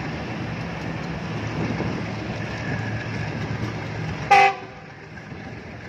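Passenger train rolling slowly through a station with a steady low rumble. About four seconds in, a locomotive horn gives one short, loud toot, and the rumble is quieter after it.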